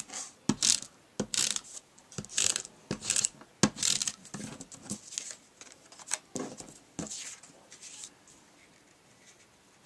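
Pieces of cardstock being handled and layered onto a card: paper rustling and sliding, with scattered light taps and clicks, thinning out near the end.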